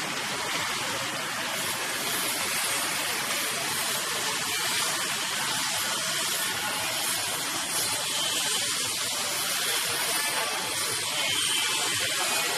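Steady hissing street ambience of motor traffic, with no distinct events standing out.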